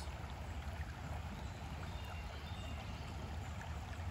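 Shallow rocky stream flowing over stones, a steady babble of water.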